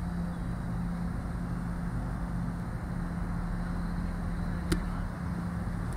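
Steady low outdoor rumble with a constant hum underneath, and one sharp click about three-quarters of the way through.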